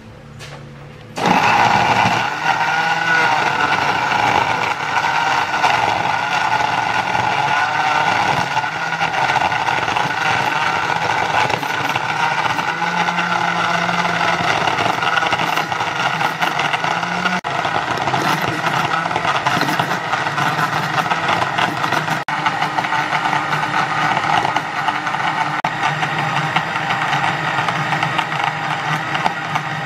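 Philips countertop blender running steadily, starting about a second in and stopping near the end. It is blending mango, yogurt, sugar and ice cubes into mango lassi.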